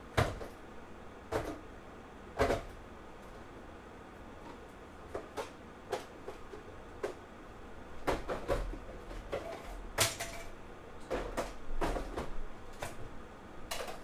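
Rummaging on storage shelves: irregular knocks, clicks and clatter of boxes and parts being handled and set down. Loud knocks come just after the start, at about two and a half seconds and at about ten seconds, and the clatter grows busier in the second half.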